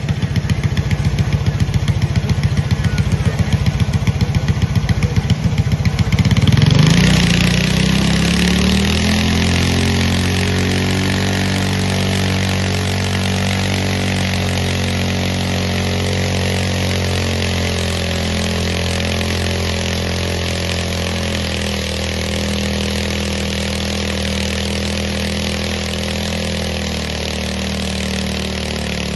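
Lawn mower engine running with a rhythmic, pulsing idle, then revved up sharply about six seconds in and held at a steady high speed, its pitch sagging slightly now and then.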